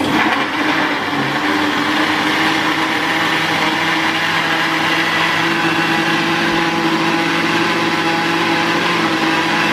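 Countertop jug blender switched on and running steadily, loud, its motor whirring as it blends a pancake batter of banana, oats, egg and milk.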